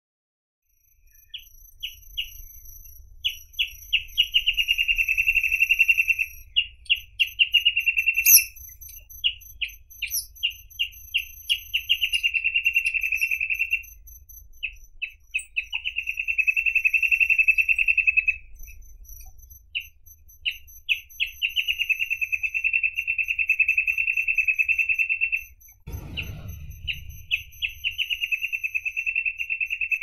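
Reed parrotbill singing: phrases of a few separate high notes that speed up into a fast trill held for two to three seconds, repeated about six times. A low rumble runs underneath, and there is a brief low thud near the end.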